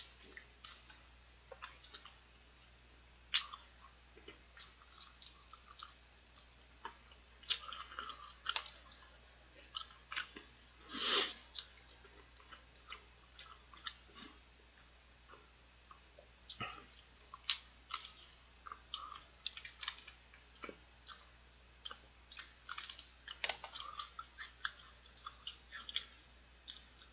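Close-up chewing and biting of fried chicken: irregular wet clicks and crackles of the crust and mouth. One louder, longer noise comes about eleven seconds in.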